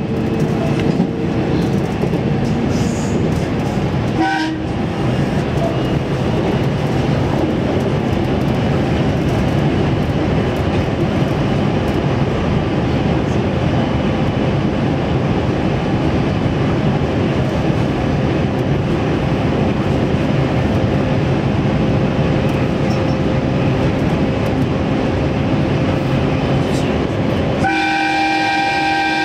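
JR Central 313 series electric train running at speed, heard from behind the driver's cab: steady rolling and motor noise on the rails. Near the end a brief steady tone with several pitches sounds for about a second and a half.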